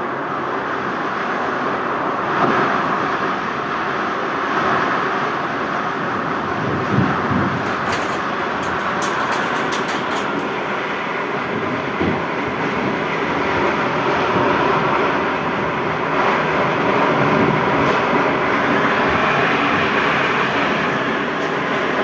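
Tornado winds blowing hard and without let-up, a continuous rushing noise, with a short run of sharp crackles about eight to ten seconds in.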